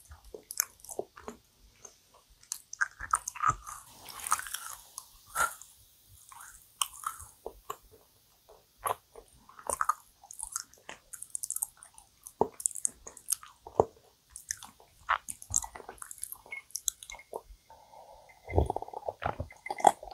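Close-miked chewing of dense, sticky yakgwa (Korean deep-fried honey cookie): a steady run of short, wet mouth clicks and smacks. Near the end, a gulp of iced americano from a glass mug.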